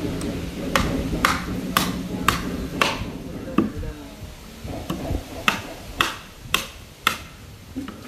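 Hammer striking the wooden shuttering at the base of a concrete column form, knocking the bottom planks into place. Sharp knocks about two a second, five in a row, a pause, then four more.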